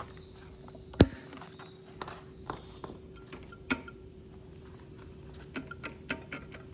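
Sharp clicks and knocks of hand tools working on a small engine being taken apart, with one loud knock about a second in and a cluster of lighter clicks near the end. A faint steady hum runs underneath.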